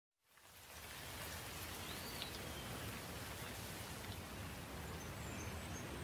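Steady rain falling, fading in over the first second. A faint bird call comes about two seconds in, and a few faint chirps near the end.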